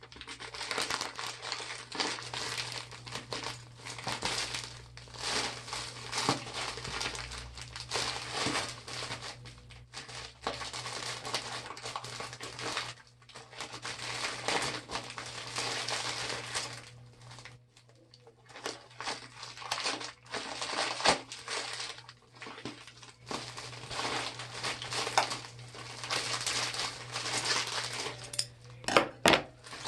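Plastic and paper packaging crinkling and rustling as a parcel is unwrapped by hand, in long stretches with a short pause about two thirds of the way through and a few sharp clicks near the end.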